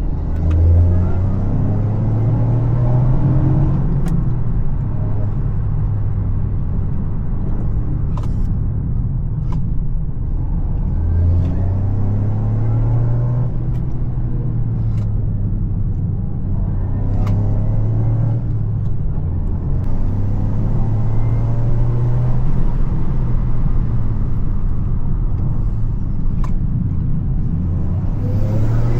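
Toyota GR Yaris's turbocharged 1.6-litre three-cylinder engine pulling under load, its note rising in pitch and dropping back several times as it revs up and changes gear. There are a few short clicks along the way.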